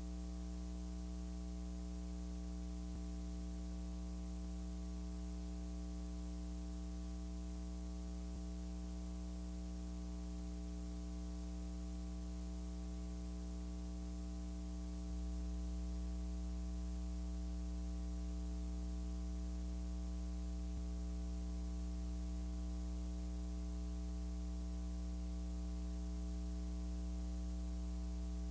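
Steady electrical mains hum with a stack of overtones over a constant hiss, with no voices or room sound coming through; it gets slightly louder about halfway through.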